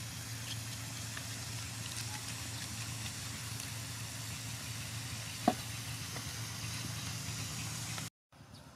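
Spicy squid frying in a wok, a steady sizzle over a low steady hum, with one sharp click about five and a half seconds in. Near the end the sound cuts out briefly and comes back fainter.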